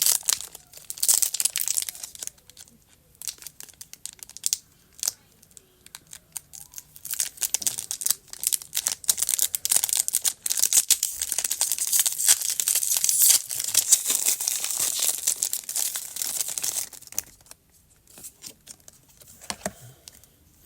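A Pokémon TCG booster pack's foil wrapper being torn open and crinkled. It comes in irregular spurts of crackling and clicks, busiest in the middle and thinning to a few soft clicks near the end.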